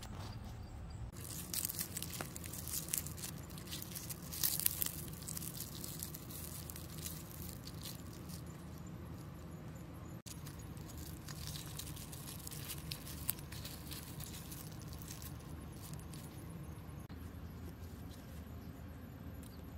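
Lemongrass stalks and leaves rustling and crackling as they are handled and folded by hand, in a cluster of short rustles during the first five seconds and lighter rustles after, over a steady low hum.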